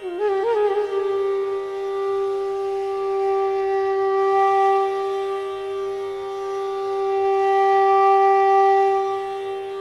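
Background instrumental music: a wind instrument comes in with a quick wavering ornament, then holds one long steady note.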